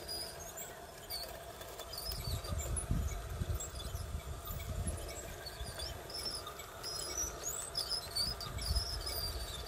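Small RC tracked dump truck crawling over loose dirt, its electric motor and gears whining steadily under many short, high squeaks and chirps. A low rumble comes in about two seconds in and again near the end.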